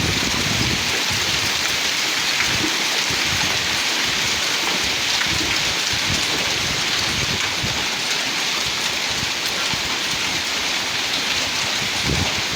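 Heavy rain pouring steadily, an even hiss.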